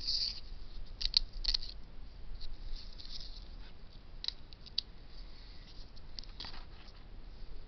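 Scattered light clicks and crinkly rustles of hands handling plastic close to the microphone.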